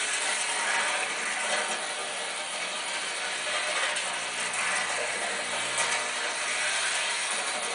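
Model train running on its track, a steady mechanical clatter and whir of wheels and motor, played back from an old videotape through a TV speaker.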